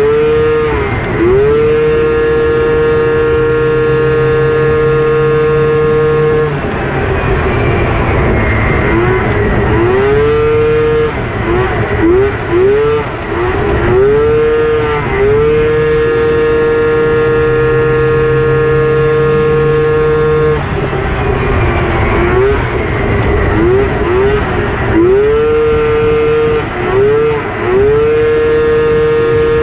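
Polaris 600 two-stroke race snowmobile engine on tuned expansion pipes, held flat out at a steady high pitch down the straights. Twice it falls away in the corners and blips quickly up and down several times before pulling back up to full revs.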